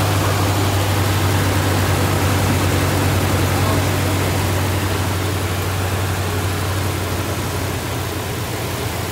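A 2014 Ram 1500's 5.7 Hemi V8, freshly fitted with a Comp Cams camshaft and new lifters, idling steadily with a low drone. It is heard up close with the hood open, on one of its first runs since the cam swap.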